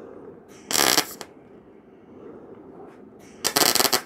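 Wire-feed (MIG) welder striking two short tack welds on thin-gauge steel: two crackling bursts of arc about half a second each, the first about a second in and the second near the end.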